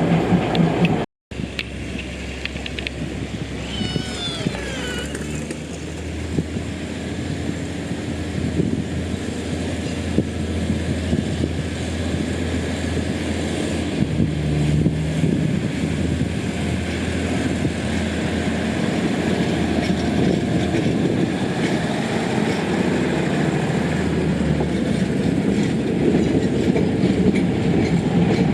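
Diesel train running with a steady low engine hum that grows slowly louder, its wheels starting to clatter in a regular rhythm over the rail joints near the end.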